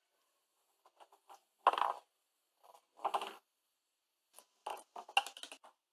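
Ping pong ball on a plywood ramp: two short rattling bursts as it rolls and clatters along the wood, then a run of light taps coming closer and closer together as it bounces and settles.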